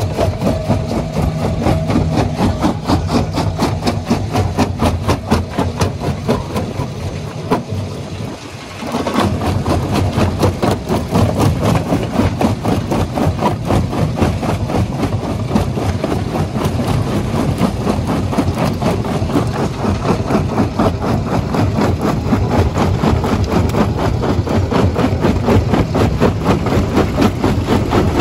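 Stone jaw crusher running, its flywheel-driven jaw knocking in a fast, even rhythm as it works on rock. It drops briefly about eight seconds in, then comes back to full level.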